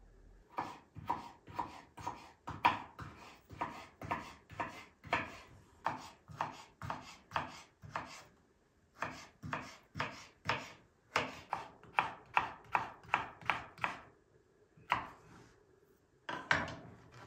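Kitchen knife cutting raw potato slices into sticks on a wooden cutting board: a steady run of chopping strokes, about two to three a second, with a short pause midway and a longer one near the end before a few last cuts.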